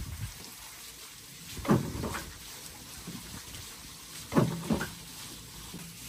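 Water-wheel-driven wooden pestle mill working: twice, a heavy wooden thud followed by a lighter knock a fraction of a second later, in an even rhythm about every two and a half seconds.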